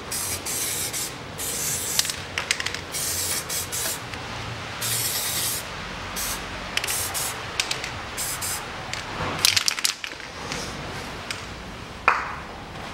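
Aerosol can of spray grease hissing in a series of short squirts as the hub's splines are coated, with a sharp click near the end.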